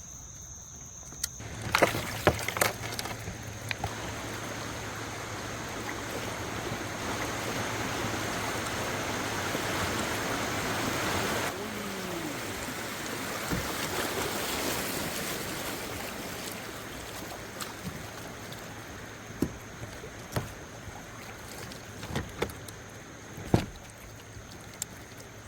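Kayak moving down a river: water rushing along the hull, swelling for several seconds in the middle and dropping off suddenly, with a steady faint low hum and a few sharp knocks against the boat, two near the start and several near the end.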